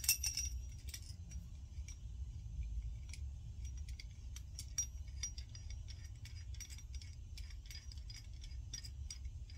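Small metal hand tools clinking and rattling as they are handled, a run of light, irregular clinks over a steady low rumble.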